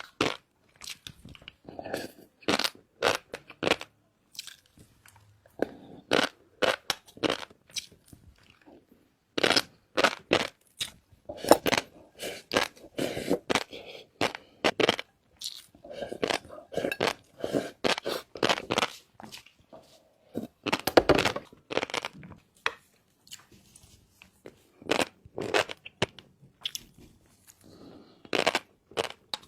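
Close-miked eating of shrimp topped with fish roe: the food is bitten and chewed with crisp crunching and popping clicks that come in irregular clusters.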